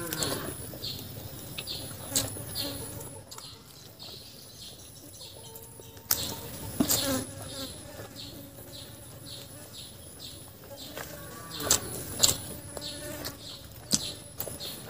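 Close-miked chewing and lip-smacking as chicken leg meat is bitten and pulled off the bone by hand, in scattered wet clicks and smacks, loudest about halfway through and again near the end. A faint, steady, high insect whine runs behind.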